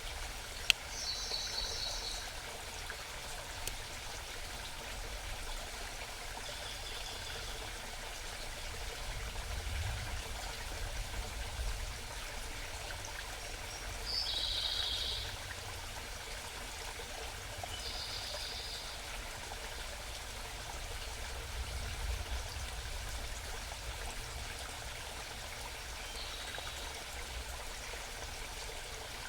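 Small mountain stream babbling steadily, with a songbird singing short, high trilled phrases about every four seconds. A single sharp click about a second in.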